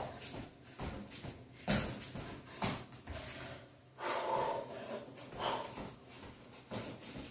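A person breathing hard during a plank exercise, quick noisy breaths about two a second, with a longer, fuller effortful exhale about four seconds in.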